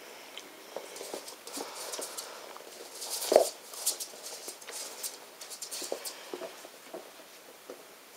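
A young puppy scrabbling and pattering about on a rug and wooden floor while it plays with a small toy. The sound is scattered light clicks and scuffs, with one louder bump a little over three seconds in.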